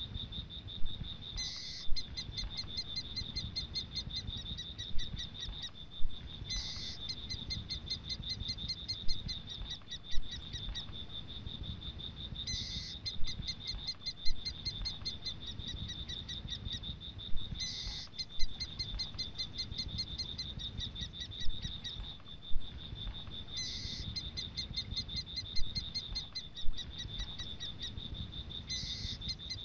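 Night-time frog and insect chorus: a steady high-pitched drone, with a rapid pulsed trill of about two seconds that repeats roughly every five to six seconds. Short sharp clicks come every few seconds.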